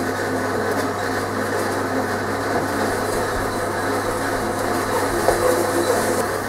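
A bandsaw running steadily in the background with a constant low hum, while moulding sand is packed by hand into a wooden flask and tamped with a wooden rammer, giving a few soft knocks a little past five seconds in.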